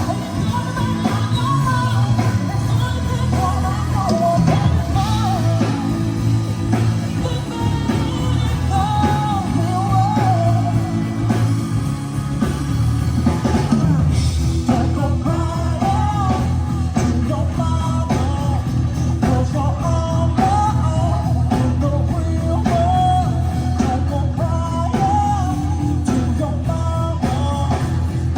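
Rock song with a sung vocal, guitar and drums.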